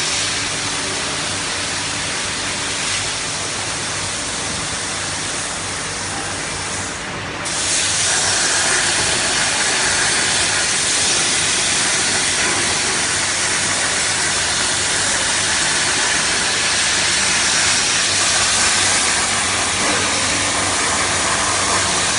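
CNC cutting torch (plasma or oxy-gas) hissing steadily while cutting, over a faint machine hum. The hiss dips for a moment about seven seconds in, then comes back louder.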